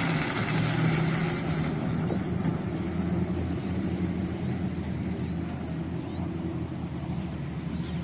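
Steady low mechanical hum of an engine or motor running, with a hiss that fades out in the first couple of seconds.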